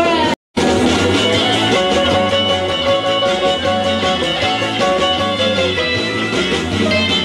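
Rock-and-roll instrumental break: a hollow-body electric guitar played over a backing band track, with no singing. The sound drops out completely for a split second just under half a second in.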